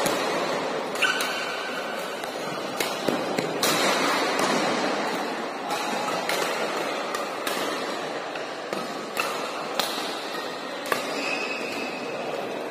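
Badminton rally: a shuttlecock struck back and forth by racquets, about nine sharp hits at irregular intervals, over the steady background noise of the hall.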